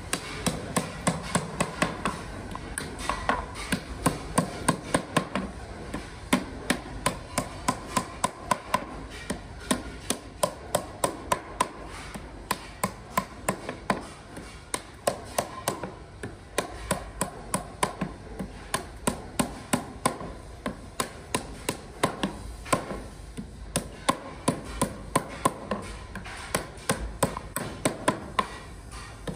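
Claw hammer driving nails into the lid of a wooden crate: quick runs of sharp strikes, about three a second, with short pauses between nails.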